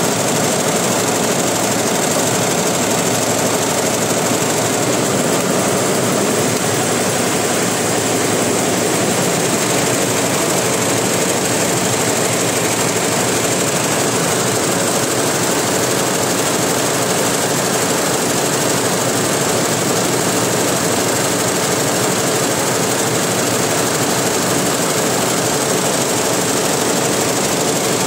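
Computerized embroidery machine (BABA) running steadily, its needle bar stitching continuously as it sews silver metallic cord onto fabric.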